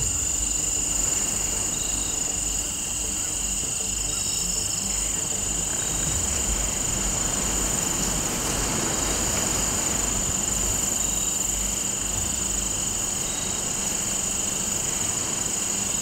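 Steady insect chorus, a continuous high-pitched trill that does not change, over a low rumble.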